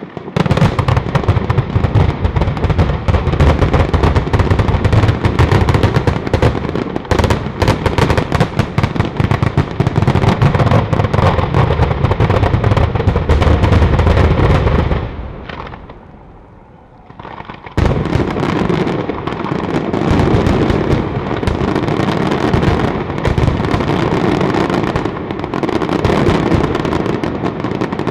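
A Sanseverese-style ground firecracker battery going off: a dense, rapid string of bangs and cracks that run together. The bangs die away about fifteen seconds in, then start again abruptly a couple of seconds later and carry on.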